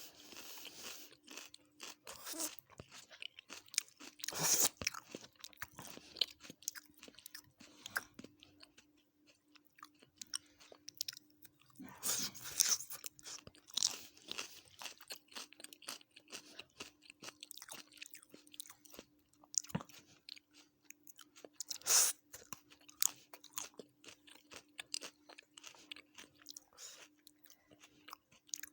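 Close-up eating sounds of a person chewing and crunching a meal of chicken biryani with raita and salad, with wet mouth clicks and a few louder crunchy bites. A faint steady hum runs underneath.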